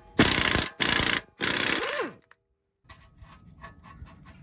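Impact wrench with a 24 mm impact socket hammering on the lower ball joint nut in three short bursts, its motor winding down after the last. After a brief gap come faint clicks as the loosened nut is handled.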